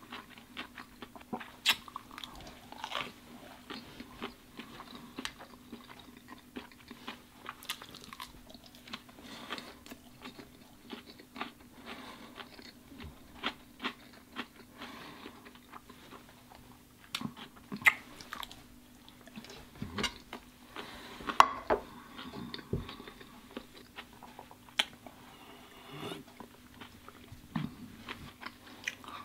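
A person chewing and biting leftover sushi and grilled shrimp close to the microphone, with many scattered sharp clicks and small crunches. A steady low hum runs underneath.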